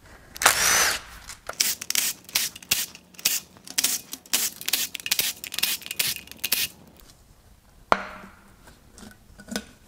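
Cordless power tool backing out the 10 mm oil-pan bolts on an engine. A longer burst comes first, then a string of short sharp bursts, and a single sharp click about eight seconds in.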